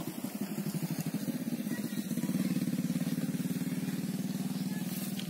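A small engine running nearby with a rapid, even pulse, getting a little louder about two seconds in and then easing off.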